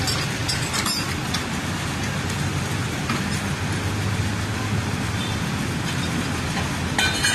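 Idling engines and passing road traffic make a steady low rumble, with a few short metallic clinks about a second in and near the end as the tow truck's chain and hook are handled.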